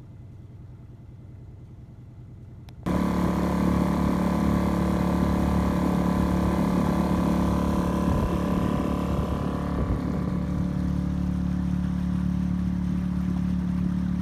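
A boat's engine running steadily while under way. It is a quieter hum at first, then suddenly much louder about three seconds in, as if heard right beside it.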